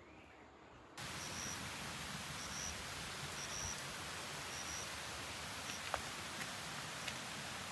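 Steady rush of a nearby stream, starting suddenly about a second in. Over it, a short high chirp repeats every second or so, and a few faint clicks come near the end.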